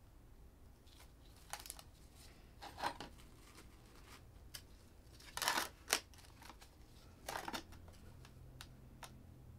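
Hands handling a small potted succulent arrangement, making a few short rustling and scraping sounds with small ticks in between. The loudest scrape comes just past the middle.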